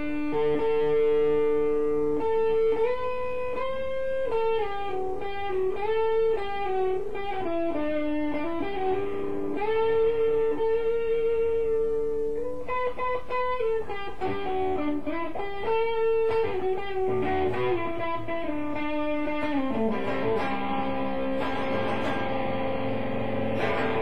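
Electric guitar, a red SG-style solid-body, played through a small combo amplifier. It carries a single-note melody of long held notes with bends in pitch, then turns to fuller strummed chords over the last few seconds.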